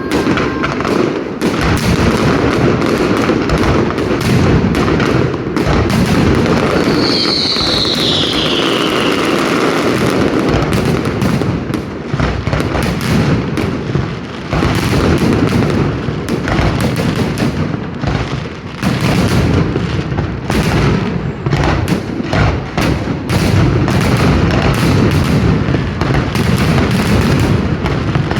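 Fireworks display: a dense, continuous run of bangs and crackling, with one descending whistle about seven seconds in.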